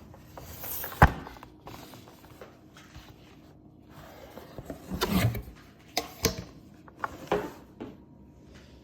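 Cardboard box and packaging being handled and opened: one sharp knock about a second in, then a few short bouts of rubbing and scraping.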